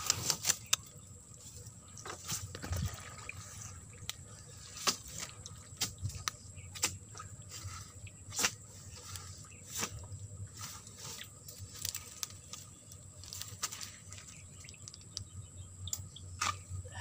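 Irregular sharp knocks and crackles, roughly one a second, from a steel digging bar working into soil and dry bamboo leaf litter to dig out a bamboo shoot, with dry leaves crunching.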